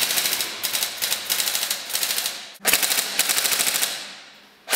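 Airsoft M4-style rifles firing long fully automatic bursts, a fast, even rattle of shots. One burst cuts off suddenly about two and a half seconds in, and another starts at once and fades away.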